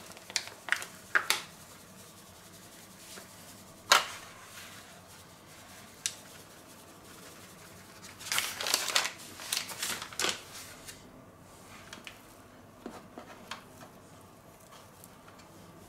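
Paper flour bag crinkling and being tapped as flour is shaken out over a wooden cutting board, in short scattered rustles with a sharp tap about four seconds in. Near the end, light handling sounds as a dough ball is lifted from a steel baking tray.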